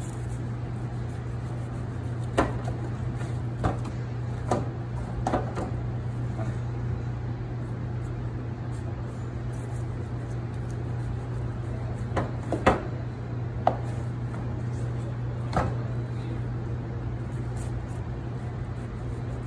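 Scattered sharp clicks and knocks as a chef's knife scrapes and cuts along the long exposed rib bone of a tomahawk steak on a plastic cutting board, over the steady low hum of commercial kitchen equipment.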